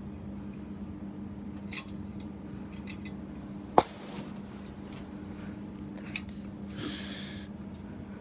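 Clothes hangers clicking and knocking against a metal rack rail as dresses are handled and pushed along, with one sharp, loud clack about halfway through and a brief rustle of fabric near the end, over a steady low hum.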